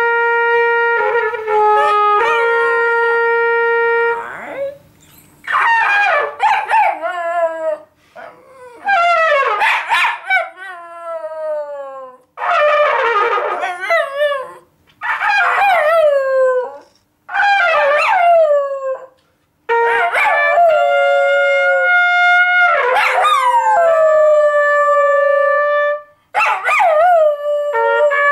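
Schnoodle howling and 'talking' in a run of drawn-out howls with short pauses between them: some are held on one steady pitch, most slide downward in pitch as they fade.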